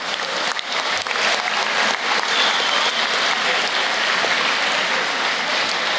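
An audience clapping steadily.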